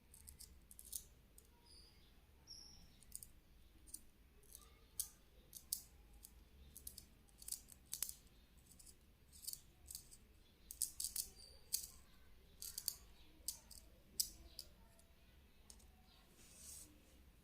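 Faint, irregular scratching and light clicking from a pencil's graphite lead being worked into powder, in quick spells of short strokes.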